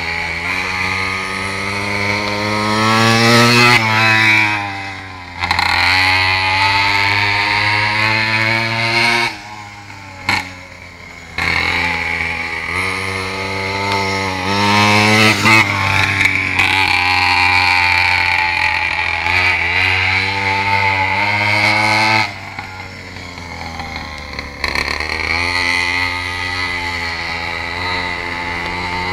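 Mini moto (pocket bike) engine revving again and again, its pitch climbing, holding high for a few seconds, then falling back to a lower idle, most clearly about ten seconds in and again a little past twenty seconds.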